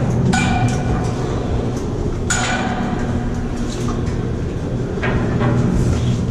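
Metal climbing gear and steel ladder inside a wind turbine tower clanking, each strike ringing on briefly, three times about two to three seconds apart. Under it runs a steady low hum.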